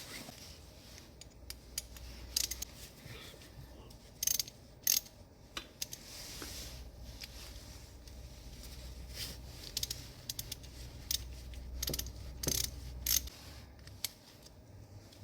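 Small metal parts clicking and tapping irregularly as brake pad retaining pins are fitted into a motorcycle brake caliper. A low steady hum runs underneath and stops near the end.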